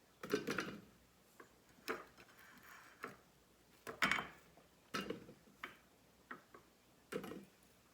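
Quartered onion pieces dropped one at a time into a Thermomix TM6's stainless steel mixing bowl: about eight separate soft knocks, irregularly spaced.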